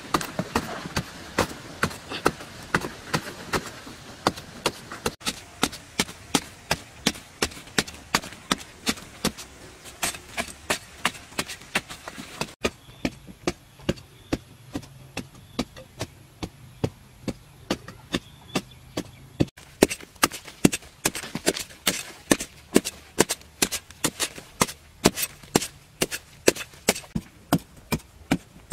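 A digging hoe striking and chopping into packed earth again and again, about two strokes a second.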